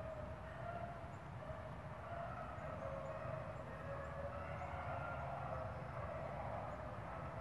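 A pack of rabbit dogs baying faintly in the distance, their overlapping voices blending into one long, wavering, siren-like cry: the pack is on a rabbit's track, running it.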